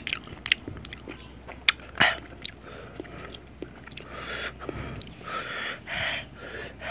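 Close-up chewing of sliced ginger with chili salt: sharp wet mouth clicks and crunches, then several longer breathy hisses of air through the mouth in the second half.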